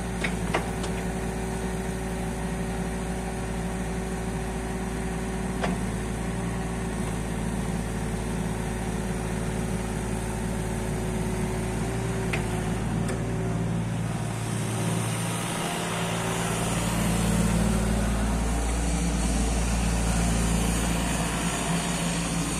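Diesel engine of a JCB 8026 mini excavator running steadily, with a few light clicks. About two-thirds of the way through, the sound grows louder with more hiss, as the engine works harder.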